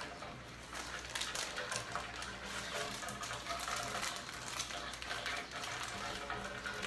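Baking paper being peeled off a freshly baked rocambole sponge: faint rustling and small crackles of the paper, over a steady low hum.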